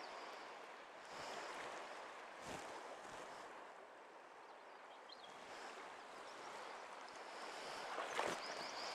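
Steady rush of a flowing creek, with faint bird chirps now and then and a couple of brief knocks or splashes.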